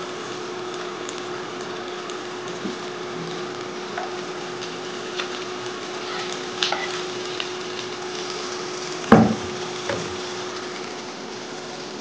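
Sliced onions and green chillies sizzling gently in a non-stick frying pan with no added oil, stirred with wooden and silicone spatulas that scrape and tap the pan. There is one louder knock about nine seconds in, and a steady hum underneath.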